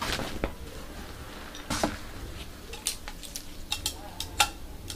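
Whole hides of soft nappa leather being lifted and turned over by hand: scattered short slaps and clicks as the skins flap and rustle.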